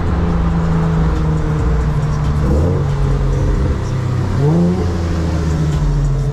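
Infiniti G37's V6 engine heard from inside the cabin, running steadily at low speed in traffic. Its note rises briefly twice, about two and a half and four and a half seconds in.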